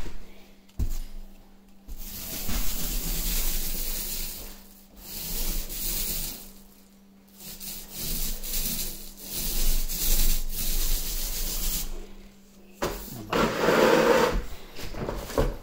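Paint roller loaded with paint rolling over a wall in several strokes: a rubbing hiss that comes and goes with short pauses between strokes. A brief pitched sound comes near the end.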